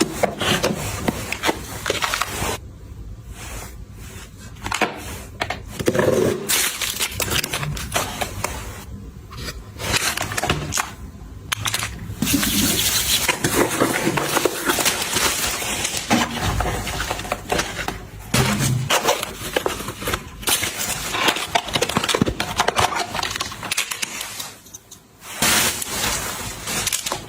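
Handling sounds of household objects: many short clicks, taps and scrapes, with stretches of hiss-like noise.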